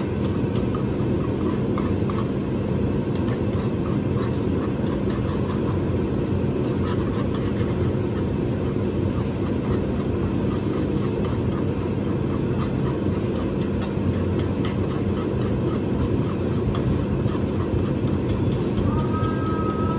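Kitchen range hood extractor fan running with a steady low rumble and hum, while a spatula scrapes and taps a frying pan as food is stirred. Near the end a quick run of clicks and a few held high tones come in.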